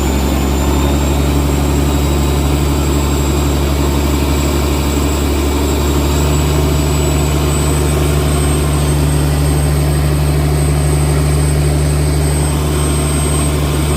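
Fishing boat's engine running steadily with a deep, even hum, a faint thin high whine sitting above it.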